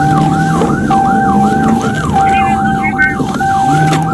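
Emergency-vehicle siren in a fast yelp, its pitch sweeping up and down about three times a second, with a steady siren tone cutting in and out beneath it.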